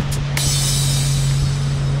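Background music with a drum beat cuts off just after the start. It gives way to a motorboat's steady engine hum and a rushing hiss of wind and water.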